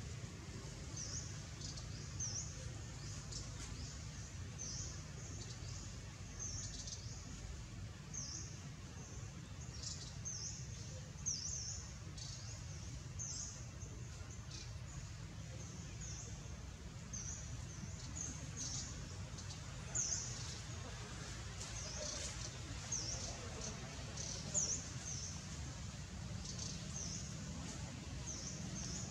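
Small birds chirping in short, high notes, repeating irregularly over a steady low outdoor rumble, with a few brief knocks.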